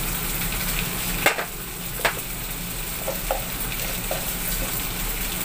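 Anchovies, tofu and green chillies frying in a wok: a steady sizzling hiss, with two sharp clicks a little over a second and about two seconds in.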